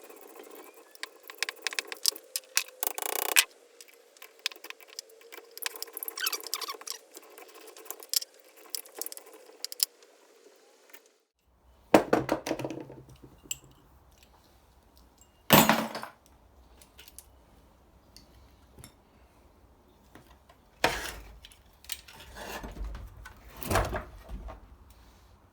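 Metal parts clinking and tapping as a heavy-duty transformer is taken apart by hand, with four louder clanks in the second half.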